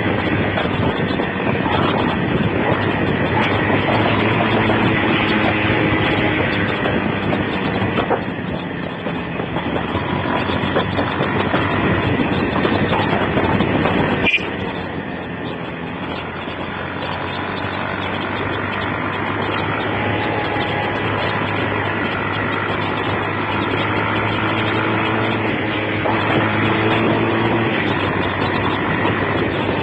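Motorcycle under way on the road, its engine running beneath heavy wind rushing over a mobile phone's microphone. A sharp click comes about halfway through, after which the sound is a little quieter.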